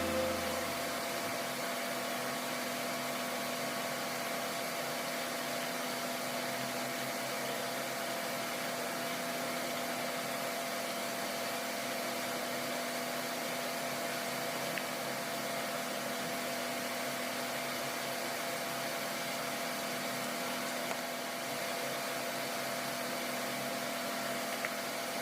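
A steady mechanical hum with an even hiss and a constant pitched drone, unchanging throughout.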